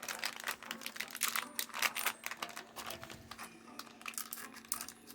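Plastic toy packaging crinkling and crackling in the hands as it is opened, a quick irregular run of sharp clicks and rustles that thins out near the end.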